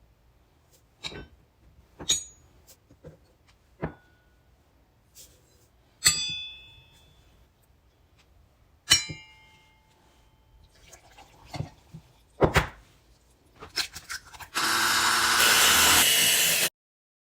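Kitchen utensils clinking and knocking against bowls and pans, two of the clinks ringing briefly. Near the end a small motor runs loudly and steadily for about two seconds, then cuts off suddenly.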